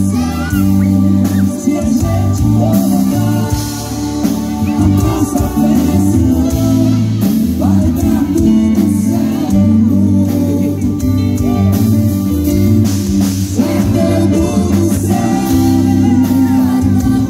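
Live band playing loud through a PA: men singing over electric guitars and drums.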